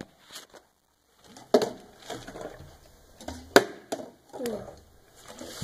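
Three sharp knocks on a hard surface about two seconds apart, the last the loudest, with brief falling voice sounds from children between them.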